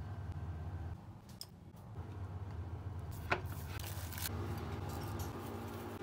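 Faint kitchen handling noises: a few light ticks and one sharp click about three seconds in, over a low steady hum.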